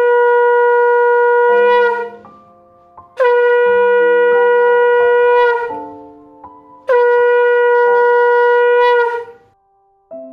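Conch shell (shankha) blown in three long blasts of about two seconds each, each held on one steady pitch that sags slightly as it ends; this is the customary conch blowing that closes a puja. Soft keyboard background music fills the gaps between blasts.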